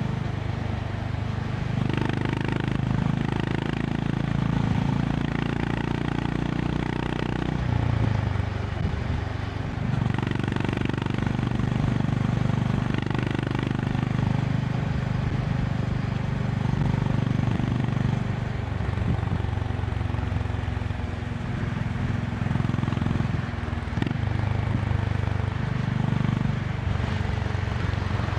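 Honda CB350 RS's single-cylinder engine running at highway speed, heard from the rider's seat, its note rising and falling several times as the throttle changes, over a steady rush of wind.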